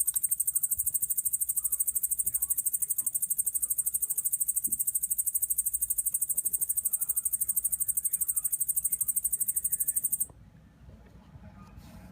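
Yabukiri katydid (Tettigonia orientalis) singing: a high-pitched, fast, perfectly even buzzing trill of rapid pulses that stops abruptly about ten seconds in.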